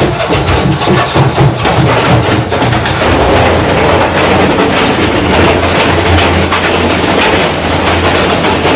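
Washing machine running at full speed with heavy stones inside, the stones banging against the drum as the machine is wrecked. For the first few seconds the knocks come fast and irregular, then they merge into a loud, steady rumbling clatter.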